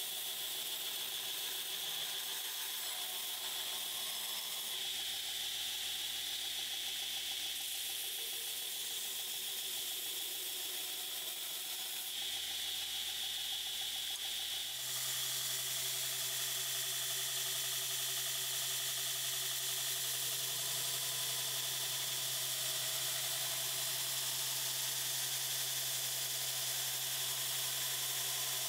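Belt grinder running steadily while a Damascus steel blade is held against the belt, grinding the bevels at the final-grinding stage. About halfway through a steady low hum joins the grinding noise.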